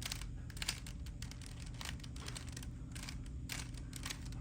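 Plastic Rubik's Cube layers being turned by hand: a string of irregular clicks and clacks, the sharpest a little under a second in.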